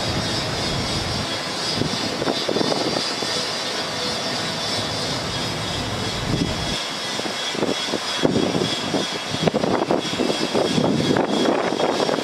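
Cummins 6.7L ISB diesel engine of a bucket truck running with the PTO engaged, driving the hydraulics as the Altec boom moves, with a steady high whine over it. Wind buffets the microphone in irregular gusts, heaviest in the second half.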